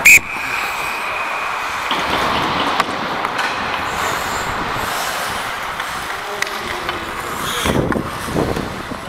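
A short, very loud referee's whistle blast right at the start, followed by steady rink noise of play on the ice.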